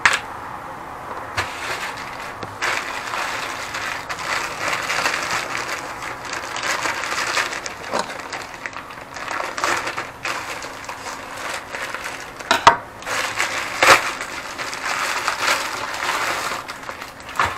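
Plastic mailer bag rustling and crinkling as it is handled and opened, with a few sharp clicks, two of them a little over a second apart near the end.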